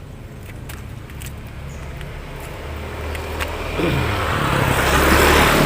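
A motor vehicle engine approaching and passing close by, growing steadily louder to a peak near the end, with a brief drop in engine pitch partway through.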